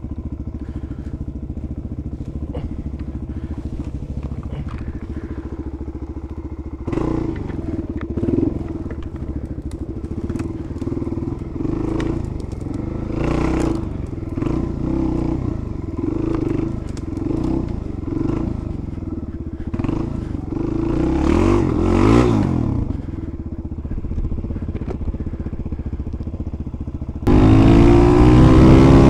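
Suzuki DR-Z400 supermoto's single-cylinder four-stroke engine, fitted with a CRD exhaust, running steadily at low revs, then revving up and down with blips of throttle, with twigs and branches cracking and scraping against the bike. About 27 seconds in it turns suddenly louder as the bike runs faster on open ground, with wind on the microphone.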